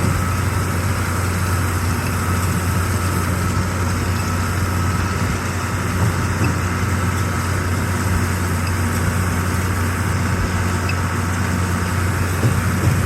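Tractor engine running steadily, driving a baler at work, with no clunking or banging from the baler: it sounds nice and quiet, the baler's noise fault cured.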